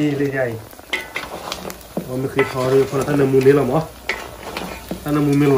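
Meat frying and sizzling in a steaming wok as it is stirred, with a man's voice louder over it in stretches.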